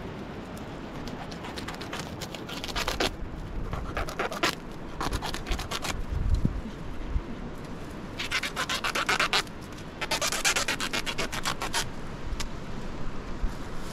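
Woven plastic sack rustling and crinkling as it is handled and pulled at, in several bursts of a second or two each.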